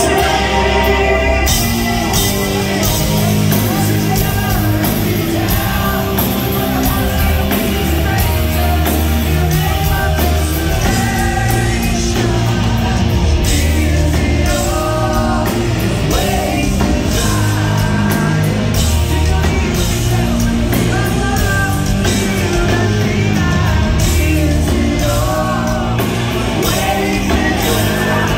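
Live rock band playing loudly, with a male lead singer belting into the microphone over electric guitars, bass and drums.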